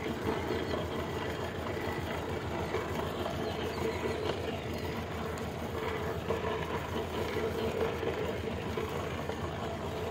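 Tractor engine running steadily under load, driving a PTO implement set fully down into the soil in low gear at 540 economy PTO speed.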